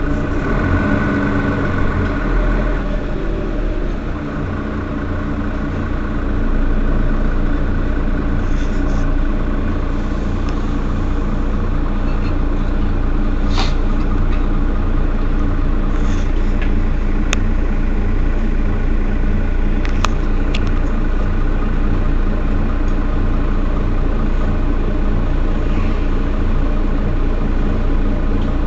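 Mercedes-Benz Citaro facelift city bus's diesel engine idling steadily, its level dipping briefly a few seconds in before settling. A few faint sharp clicks come midway.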